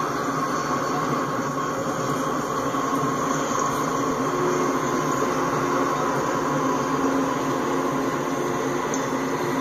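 Norfolk Southern diesel locomotives passing at track speed, then the intermodal flatcars carrying trailers rolling by, making a steady, unbroken train noise.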